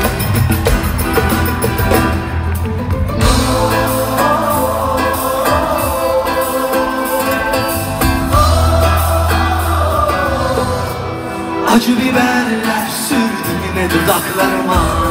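Live pop concert music: a male lead singer over a full band with drums, bass and electric guitar.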